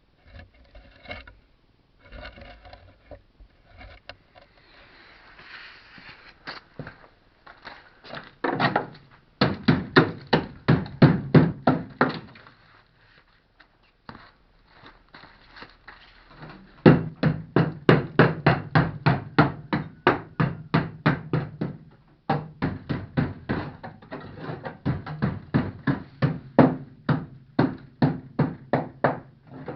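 Moskvich 2141 engine being cranked on the starter in three attempts, about five compression pulses a second over the starter motor's hum, without catching, on a battery that is running down. Scattered knocks and handling noises come before the first attempt.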